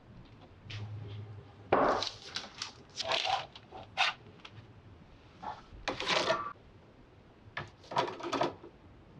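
Kitchen handling noises: several short bursts of clatter and scraping, as of baking tray, spoon and cookies being handled, with quiet gaps between.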